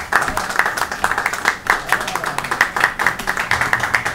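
Audience applauding: many hands clapping in a dense, rapid, irregular patter, with crowd voices mixed in.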